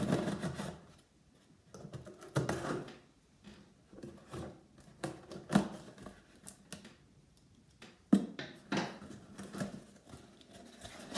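Scissors cutting the packing tape along a cardboard box seam, then the cardboard flaps being pulled open: irregular clicks, scrapes and rustles with quiet gaps between them, busier near the end.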